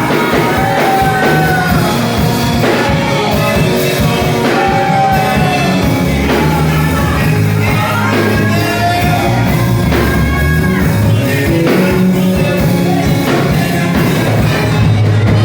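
Gospel worship song: a singing voice carrying the melody over a band with bass and drums.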